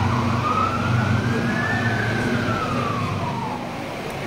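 An emergency vehicle siren makes one slow wail, rising to its peak about two seconds in and falling away near the end. Under it runs a steady low engine rumble.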